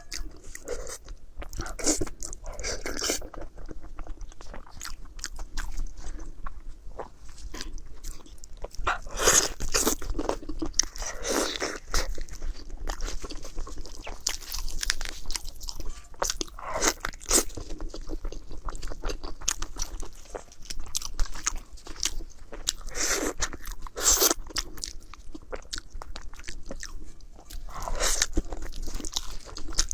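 Close-miked eating: repeated crunchy bites and chewing of food, in irregular bursts.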